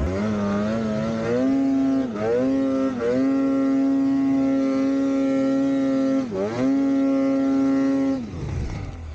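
Snowmobile engine held at high revs while the sled is ridden through deep snow, the revs dipping briefly about two, three and six seconds in. Near the end the revs fall away.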